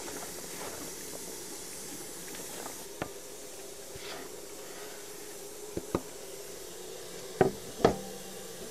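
Steady hiss of cooking in a cast kazan, with a faint steady tone under it. A metal utensil knocks sharply on the pot five times, the loudest two close together near the end, each with a short metallic ring.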